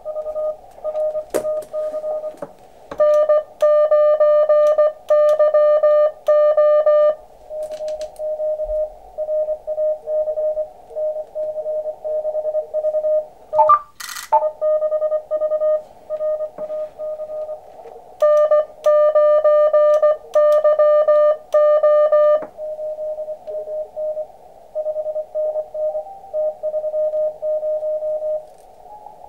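Morse code (CW) tones on one steady pitch from an Elecraft KX2 transceiver: other contest stations' dits and dahs in the receiver, and twice a louder run of keyed tone, about three seconds in and again about eighteen seconds in, as a station is called. A short burst of noise about halfway through.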